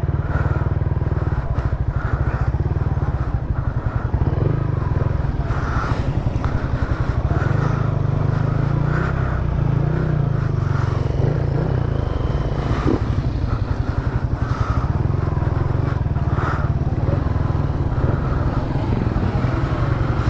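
A motor engine running steadily, with a dense low, fast-pulsing drone that does not let up.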